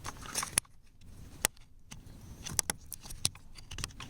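Irregular sharp plastic clicks and light rattling as a clip or wiring connector inside a car door panel is worked loose and popped out.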